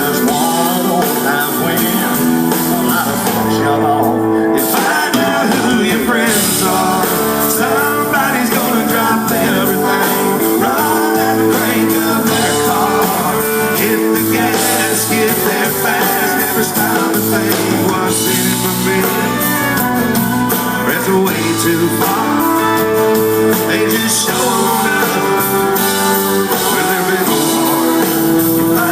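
A live country band playing loudly and without a break, with guitars prominent.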